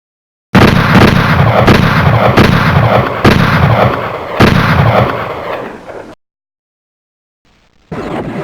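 Pistol gunshots: about six shots fired at uneven intervals over roughly four seconds, each followed by echoing reverberation, the tail ending abruptly. A different steady sound begins just before the end.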